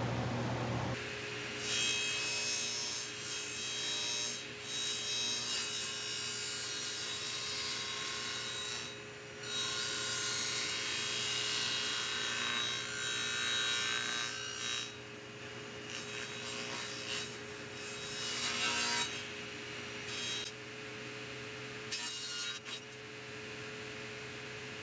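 Table saw running and cutting through a plywood panel as it is fed along the fence. The cutting noise comes in about two seconds in, with brief dips, and eases off well before the end while the blade keeps spinning.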